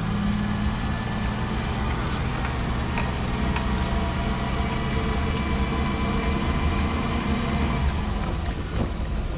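A motor vehicle running steadily, a low engine hum with road noise, heard as from a vehicle moving along a road.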